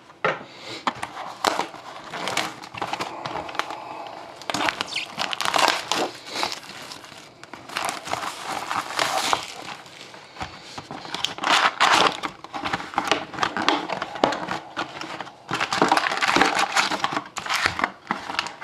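Plastic shrink wrap crinkling as it is stripped off a 2012-13 Upper Deck SP Authentic hockey card box. Then the cardboard box is opened and its foil card packs are handled and stacked. The result is a continuous, irregular run of crinkling and rustling.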